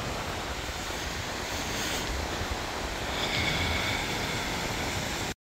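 Waves washing onto a stony shore, a steady rush of surf, with wind buffeting the microphone. The sound cuts off suddenly near the end.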